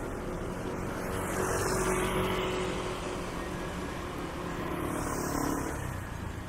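Street traffic: two road vehicles pass one after the other, each swelling up and fading away, the first about two seconds in and the second around five seconds in.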